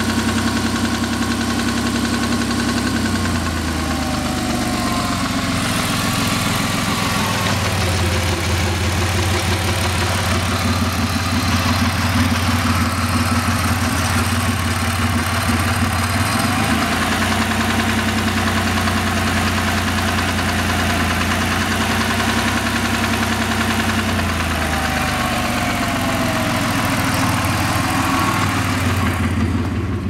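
2000 Ford SVT Contour's 3-litre V6 (Escape block, Cougar 2.5 heads, SVT cams) running, its speed stepping up and down several times, with the engine knock the owner is demonstrating.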